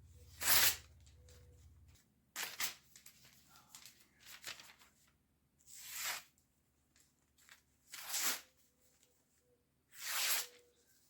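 Catalog paper being sliced with a naginata blade on its factory edge: about six short tearing, rustling cuts, one every couple of seconds.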